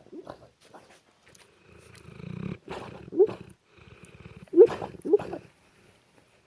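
American Bulldog snoring in deep sleep: two rattling, pulsing snores, about two seconds in and about four and a half seconds in, each ending in short squeaky notes that rise in pitch.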